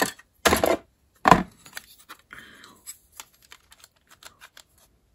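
White plastic model-kit parts handled in a cardboard box: two loud knocks in the first second and a half, then light clicks and short rustles of plastic.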